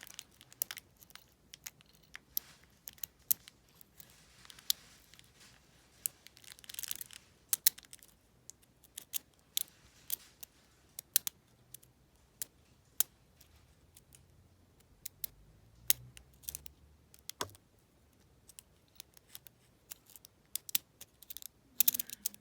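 Lock picking in an IKonic double-cylinder deadbolt: a pick and tension wrench working the pins, giving irregular small metallic clicks and brief scrapes, with now and then a sharper, louder click.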